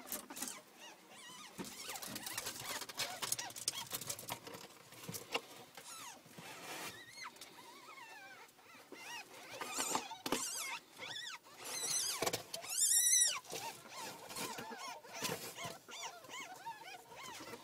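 Ferrets squeaking in a bedding-lined cardboard box, in short runs of high, rising-and-falling squeaks, loudest about ten seconds in and again around twelve to thirteen seconds in, over rustling of bedding and cardboard as a hand moves among them.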